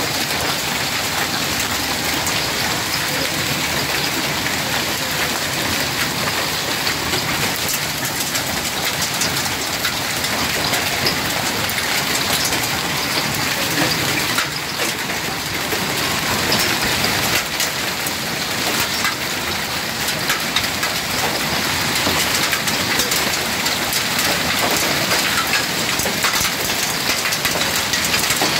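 Hailstorm: hailstones up to about 2 cm across falling hard on a paved terrace and garden, a steady dense patter of countless small sharp impacts over the hiss of the downpour.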